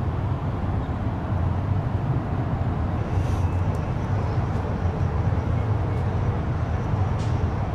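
A steady, fairly loud low engine rumble.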